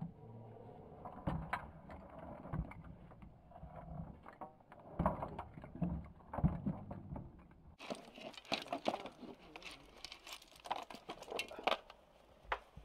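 Crab shells, clams, corn cobs and potatoes of a seafood boil tumbling from a metal pot into an aluminium foil tray: a run of irregular soft knocks and clatters, busier and sharper in the last few seconds.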